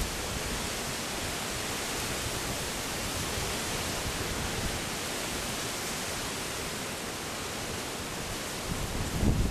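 Steady, even hiss of storm wind moving through trees.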